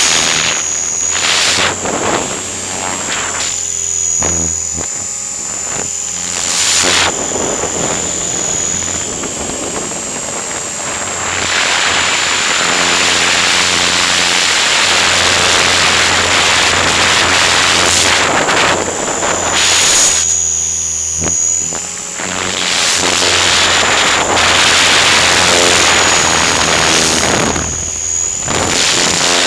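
Align T-Rex 500 electric RC helicopter in flight, heard from a camera on its nose: a steady high whine and a low drone over wind rushing on the microphone, louder at times as it manoeuvres.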